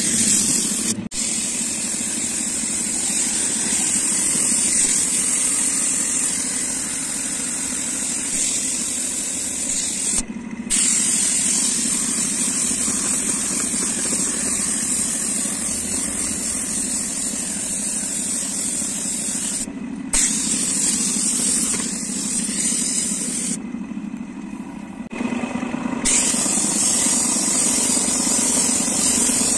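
Compressed-air paint spray gun hissing steadily as it sprays paint, over a low steady machine hum. The spray breaks off briefly about a second in, around a third and two thirds of the way through, and for a couple of seconds near the end.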